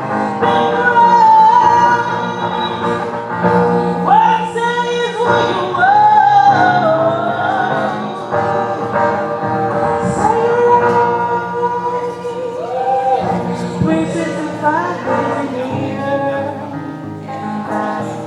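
A song: a voice singing a melody over steady instrumental accompaniment.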